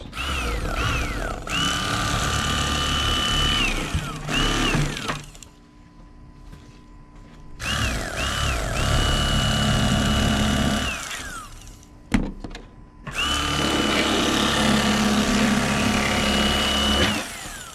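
Electric fillet knife running in three bursts of a few seconds each while filleting fish: its motor whine rises as it spins up, holds steady, and falls away as it stops, with a few quick short blips of the trigger. A sharp click sounds between the second and third runs.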